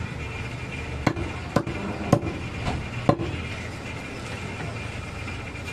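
Large butcher's knife chopping goat meat on a wooden log block: a quick run of four or five sharp blows about half a second apart, between one and three seconds in.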